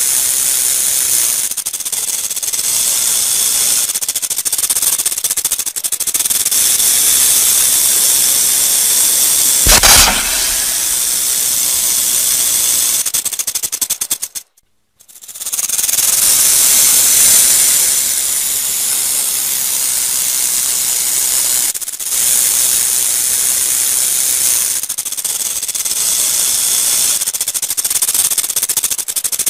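Rattlesnake shaking its tail rattle: a continuous high buzz, the snake's warning signal. There is one brief thump about ten seconds in, and the buzz cuts out suddenly for about a second midway before starting again.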